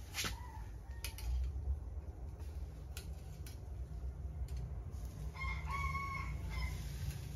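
A rooster crows once, about five seconds in, with a call lasting about a second and a half. A few light clicks come before it.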